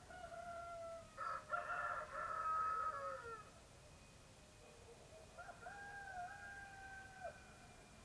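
Roosters crowing. Overlapping crows run through the first three and a half seconds, the loudest from about one to three seconds in, and another crow follows from about five and a half to seven seconds.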